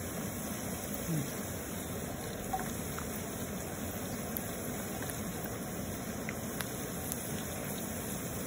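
Dried fish deep-frying in a pan of hot oil, a steady sizzle, with a few light clicks of metal tongs against the fish and pan as the pieces are turned.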